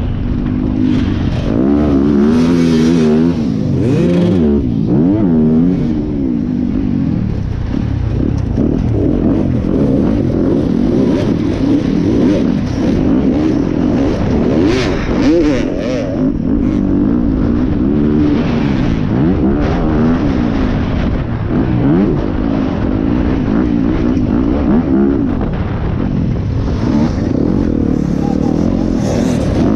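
Yamaha dirt bike's engine heard from the rider's helmet camera, its pitch rising and falling over and over as the throttle is opened and closed through the course.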